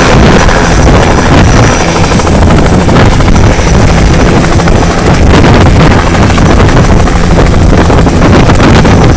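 Bell 206B JetRanger III helicopter's single turbine and rotors running loud and steady as it touches down on grass and sits on its skids.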